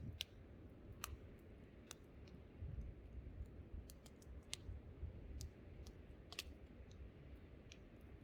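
Wood campfire crackling, with irregular sharp pops and snaps, a few louder ones, over a low rumble of wind.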